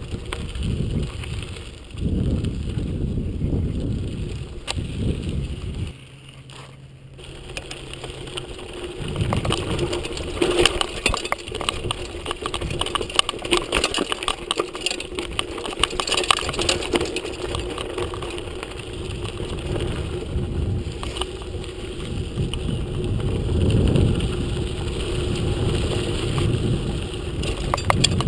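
Mountain bike riding over a dirt and rocky trail: tyres crunching on loose stones and the bike rattling, with wind rumbling on the camera microphone. The sound drops briefly about six seconds in, then the rattling over rocks grows denser.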